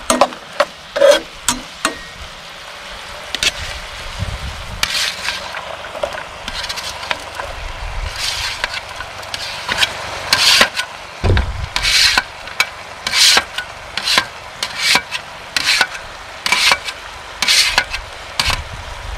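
Chicken hearts sizzling and frying in a skillet, with a metal spatula scraping and tapping against the pan. From about halfway, chopped vegetables are scraped off a metal grill tray into the hot pan, adding repeated sharp scrapes and clatter over the frying.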